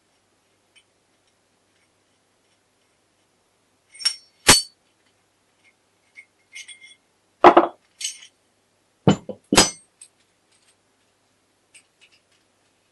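Small metal gearbox parts clinking and knocking as they are handled and set down on a table: a cluster of about six sharp clinks between about four and ten seconds in.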